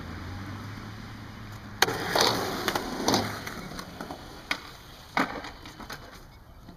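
Skateboard dropping in off a concrete ramp: a sharp clack as the wheels land a couple of seconds in, then the wheels rolling loudly over the concrete with more clacks, two further knocks of the board later on, and the rolling fading away.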